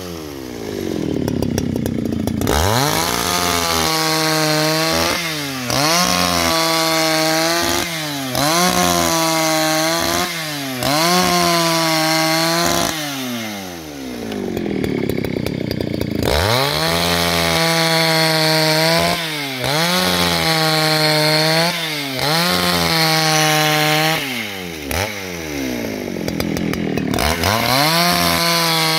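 Husqvarna 281XP two-stroke chainsaw ripping a timber lengthwise along the grain at full throttle, its engine speed dipping briefly every second or so as the chain bites. Twice, near the start and about halfway, the engine falls back toward idle and then revs up again.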